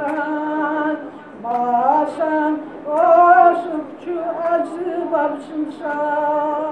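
An elderly woman singing a devotional song solo and unaccompanied, in held notes and several phrases with short breaths between them.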